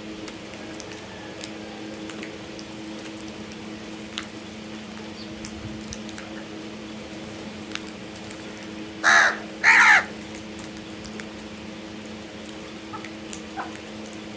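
A crow cawing twice in quick succession about nine seconds in, two short harsh calls. A steady low hum and scattered faint ticks run underneath.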